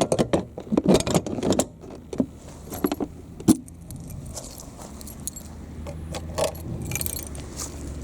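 A bunch of keys jangling and clicking in quick rattling strokes for the first few seconds, then a steady low hum with a few faint ticks.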